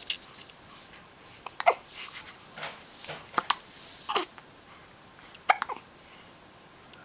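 Hiccups: short, sharp squeaks that each drop quickly in pitch, about six of them spaced irregularly a second or so apart.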